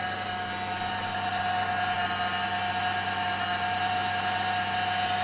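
Old Buick's engine idling steadily after a cold start: a constant hum with a steady whine on top.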